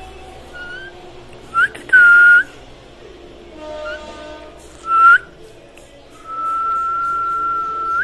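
Rose-ringed parakeet (Indian ringneck) whistling: a string of short clear whistles, some turning up at the ends, then one long steady whistle of about a second and a half near the end.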